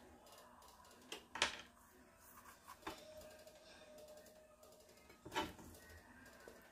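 Faint kitchen handling noise: three short sharp taps or clicks, the loudest about a second and a half in.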